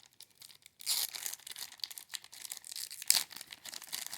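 Plastic packaging crinkling and tearing as it is handled. The crackling starts about a second in, with one sharp, louder crackle near the three-second mark.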